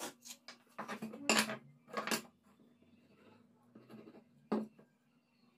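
Small wooden strips being handled and set down on a wooden workbench: a quick run of light wooden knocks and clatters in the first couple of seconds, then quieter rubbing and scraping, and one more knock about four and a half seconds in.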